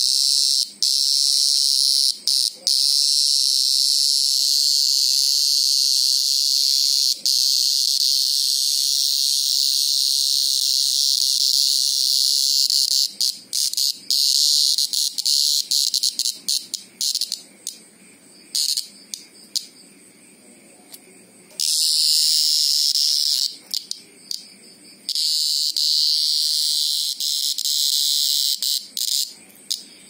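Green cicada screaming while held between the fingers, a loud, shrill, buzzing call. It runs unbroken for about the first dozen seconds, then breaks into stuttering bursts with pauses, with a few longer steady stretches later on.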